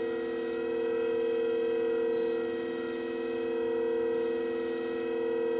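Motor of a scissor-sharpening machine running with a steady hum, its spinning disc a fine one. A scissor blade is held to the disc, and its grinding hiss comes and goes about four times as the blade is worked across.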